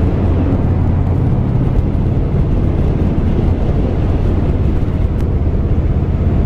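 Harley-Davidson V-twin motorcycle engine running steadily at cruising speed, mixed with wind rushing over the rider's microphone.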